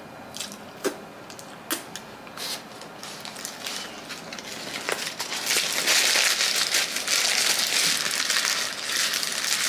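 A few light clicks, then a paper food wrapper crinkling and rustling steadily from about halfway through as it is unfolded and crumpled by hand.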